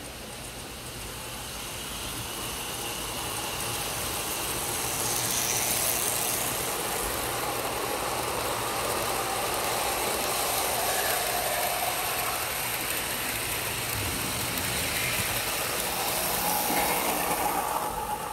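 Lionel model freight train rolling past on tubular steel three-rail O-gauge track: a steady rumble and clatter of wheels on the rails. It builds over the first few seconds as the train arrives and drops away sharply near the end as the last car passes.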